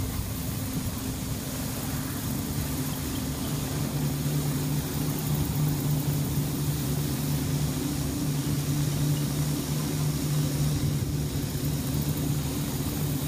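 A low, steady droning hum made of two held tones, swelling a little after about four seconds. It is the unexplained 'strange sound' being listened for.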